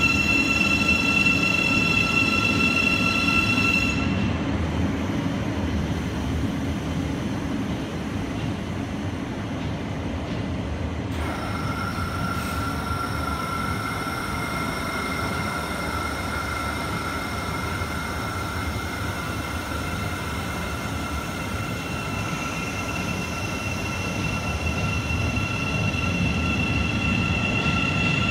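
Thameslink Class 700 electric multiple unit pulling out of the station. Its traction equipment whines in several steady high tones that stop about four seconds in and come back about eleven seconds in, over a low rumble of wheels on the rails. The sound grows louder near the end.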